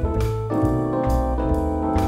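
Jazz piano playing chords and melody lines over a walking double bass and swinging drums with a ride cymbal at about 135 beats a minute.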